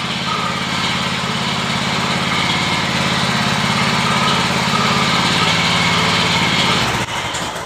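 Newly fitted engine on a paving-block machine running steadily under test, with a fast, even pulse. It dies away about seven seconds in.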